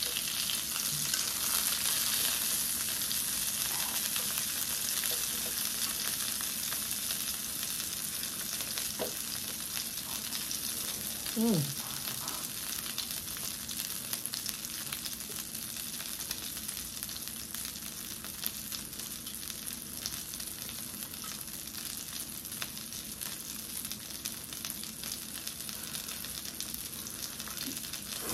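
Kimchi dumplings frying in oil in a skillet: a steady sizzle that slowly eases off. A short falling sound stands out about eleven and a half seconds in.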